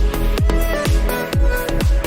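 Electronic dance music with a steady kick drum, about two beats a second, under held synth notes.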